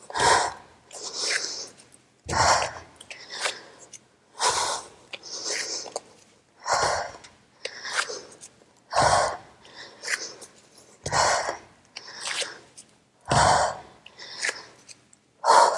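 A woman's hard breathing under exertion: a strong, forceful breath about every two seconds, in time with the reps, with quicker, weaker breaths in between.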